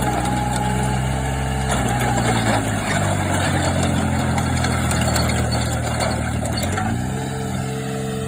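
Kubota KH-15 mini excavator's diesel engine running. A little under two seconds in its steady note drops and turns rougher, and about seven seconds in it climbs back up to the earlier steady pitch.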